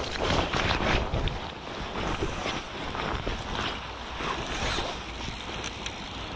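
Wind buffeting and clothing rubbing against a body-worn camera's microphone, with rustling through dry bank grass as the wearer moves, in irregular scraping bursts.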